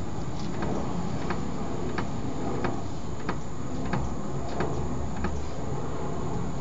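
Car front-end clunk: a sharp knock repeating evenly about every two-thirds of a second over a steady low rumble. It persists after a rack and pinion repair kit overhaul, while the owner finds the tie rods, CV joints, shock mountings, shock absorbers and ball joints fine.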